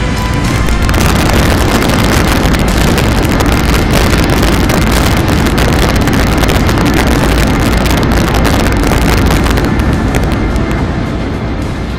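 Airbus A380's four jet engines at takeoff thrust: a loud, steady roar with a deep rumble, swelling about a second in and easing off near the end as the airliner climbs away.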